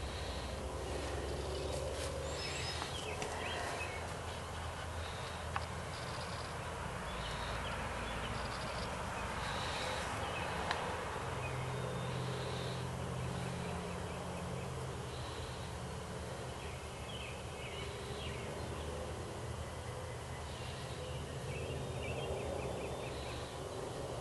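Outdoor ambience: a steady background hum with faint, short high-pitched chirps every second or two, and two single sharp clicks.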